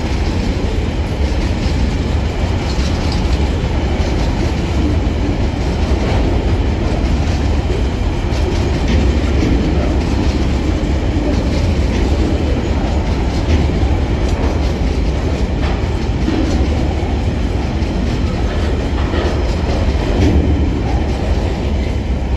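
Empty coal hopper wagons of a freight train rolling past: a steady rumble with the wheels clicking over the rail joints.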